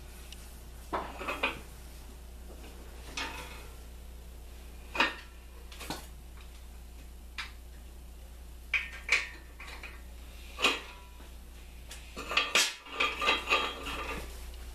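Metal parts and hand tools clinking and knocking as they are handled on a bare AMC 4.2-litre inline-six engine block: scattered single clinks, then a quick run of them near the end, over a steady low hum.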